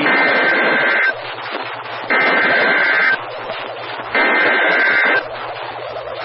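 EAS SAME header data burst from a NOAA Weather Radio alert: three buzzy two-tone digital bursts, each about a second long, with a second of radio hiss between them. This coded header opens an emergency alert, here a severe thunderstorm watch.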